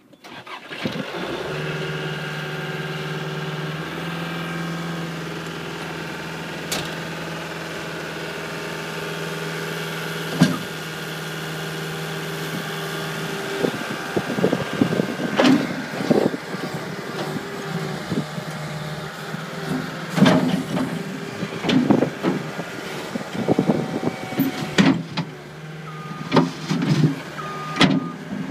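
Cat 267B tracked skid steer's diesel engine starting and then running at a steady idle. From about halfway through, repeated clanks and knocks come as the machine is worked, with two short beeps near the end.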